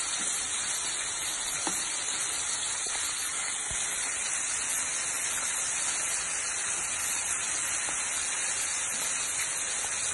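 Chicken legs deep-frying in a wide pan of hot oil: a steady sizzle, with a few faint clicks of metal tongs turning the pieces.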